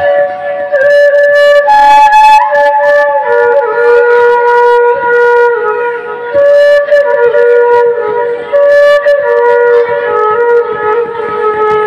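Background music: a slow flute melody of long held notes that slide gently from one pitch to the next.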